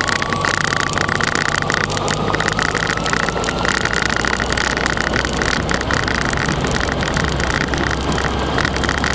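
Motorcycle engine running as the bike rides along slowly, with a faint whine rising in pitch over the first few seconds and steady wind noise on the bike-mounted microphone.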